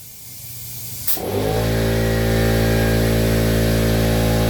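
Faint hiss of air, then about a second in an air compressor's motor kicks on with a click and runs with a loud, steady hum while the tire is inflated to seat its bead.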